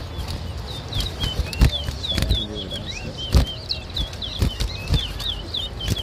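Caged towa-towa finches (chestnut-bellied seed finches) singing in a contest: a fast run of short, curved, whistled chirps, several a second, with scattered sharp knocks.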